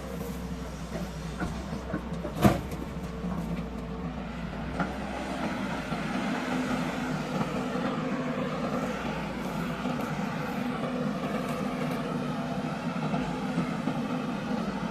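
Heavy diesel machinery (an excavator working with a tipper truck) running steadily, with one sharp bang about two and a half seconds in and a few lighter knocks.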